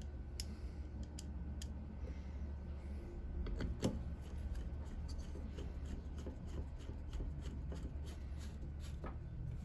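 Faint clicks and taps of small metal parts being handled as a motorcycle carburetor's top cover is fitted over its diaphragm and spring and its screws are started, one click louder about four seconds in, over a low steady hum.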